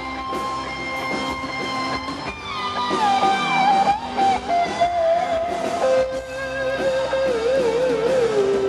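Electric guitar solo on a Stratocaster-style guitar, with the band playing underneath: long held notes that slide downward step by step, and a wide vibrato on a note near the end.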